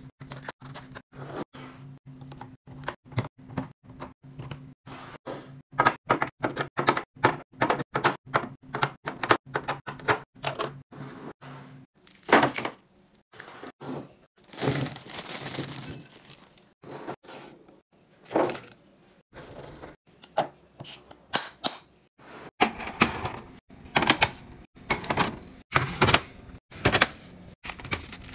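Restocking sounds: plastic snack packages and cartons knocking and clicking as hands set them into a clear plastic organizer bin, many quick irregular taps. A low hum runs under them and stops about twelve seconds in. Later come a longer rustling stretch and more clacks as a glass bowl is handled and food is put into a refrigerator.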